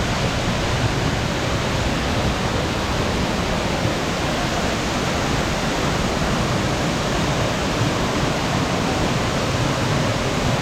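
Jalagamparai waterfall on the Attaru river: falling water making a steady, even rush that does not let up.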